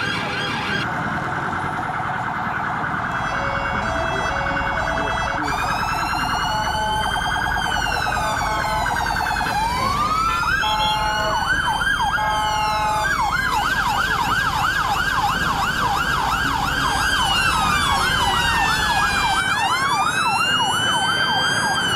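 Several police sirens sounding at once from a passing police motorcycle escort, slow rising-and-falling wails overlapping a fast yelp; the yelp is steadiest and loudest in the second half.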